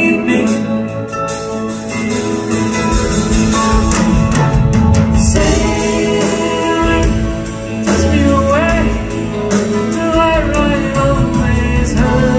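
Live band playing a slow soft-rock song: electric guitar, drums and keyboards, with a voice singing over them.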